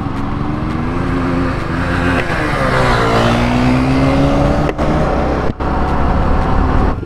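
Sport motorcycle engine heard from the rider's seat while accelerating: the revs climb, drop back at a gear change about two and a half seconds in, then climb again. Wind noise rushes underneath.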